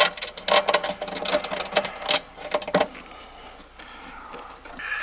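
Rapid, irregular clicking and rattling of metal mower parts and cable being handled for about three seconds, then quieter.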